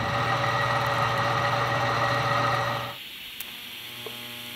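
A drill press running with its bit cutting through a steel plate: a steady motor hum with a hiss of cutting. About three seconds in it gives way to the quieter, steady buzz and hiss of an electric welding arc fusing a steel spacer to the plate.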